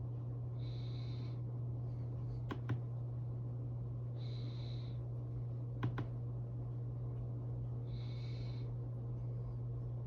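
Steady low electrical hum, with a soft breath-like hiss repeating about every four seconds and two sharp double clicks, one about two and a half seconds in and one about six seconds in.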